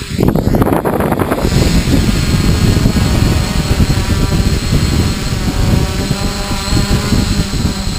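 Quadcopter's electric motors and propellers buzzing as it hovers low overhead and comes in to land, its prop downwash buffeting the microphone.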